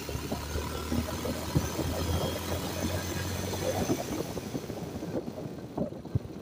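Motorcycle engine running under way, a steady low hum with wind buffeting the microphone and road noise from the ride. The engine hum drops away about four seconds in.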